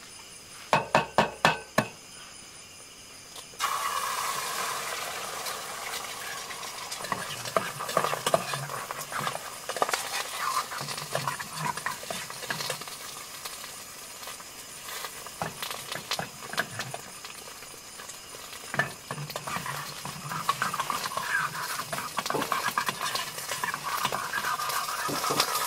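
A few sharp taps on a small aluminium camping pot, then an egg hits hot oil and starts sizzling suddenly. It keeps frying on the gas stove while a metal spatula scrapes and clicks against the pan.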